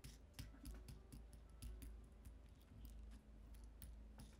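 Faint, irregular clicks and light knocks of a metal bolt being handled and turned in the wooden clamp block of an inkle loom.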